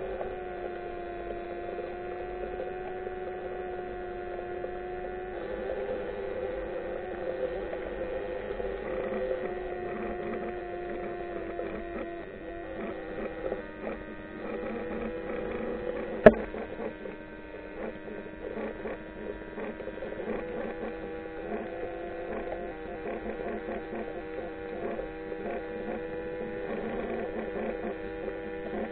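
Underwater drone: a steady hum of several tones that drift slightly in pitch, with a faint crackle of small clicks and one sharp click about halfway through.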